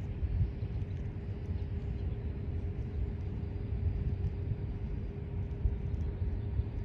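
Low, steady rumble of a Union Pacific local freight train led by EMD GP15-1 diesel locomotives, with a faint steady hum and no change in level.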